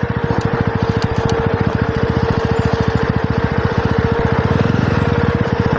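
Jawa 42's single-cylinder engine running steadily with a rapid, even exhaust beat, a steady whine running along with it.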